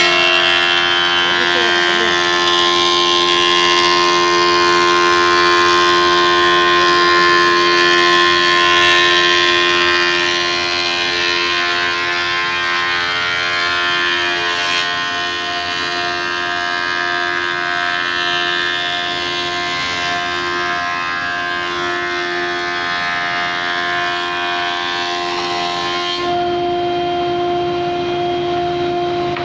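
VH-MB2032 industrial double-sided planer running, a loud, steady whine made of several held tones over a hiss. It gets a little quieter about ten seconds in, and the high hiss drops away near the end.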